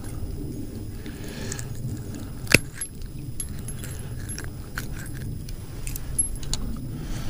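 Light metallic clicking and jangling of a fishing lure's hooks against fishing pliers as a hook is worked out of a white bass's mouth, with one sharper click about two and a half seconds in. A steady low rumble runs underneath.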